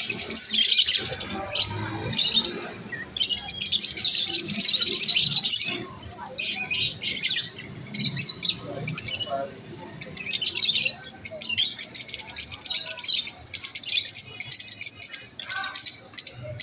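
Masked lovebirds chirping: rapid, shrill chatter in bursts a second or two long with short gaps between them, running almost unbroken near the end.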